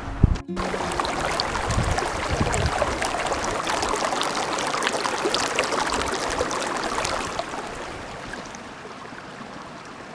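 Mountain river water rushing steadily, growing quieter about eight seconds in.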